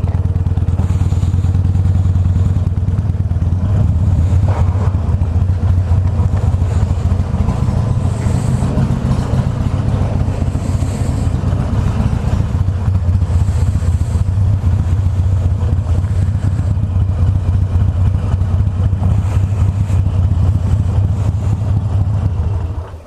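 Harley-Davidson Iron 883's air-cooled V-twin running steadily as the motorcycle rolls along at low speed, then cutting off suddenly near the end.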